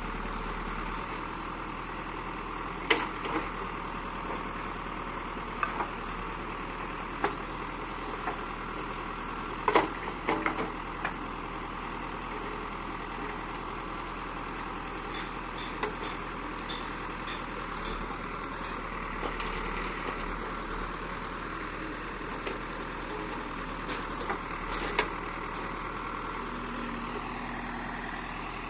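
Construction-site noise: a steady mechanical drone with scattered sharp knocks and clacks, the loudest about ten seconds in.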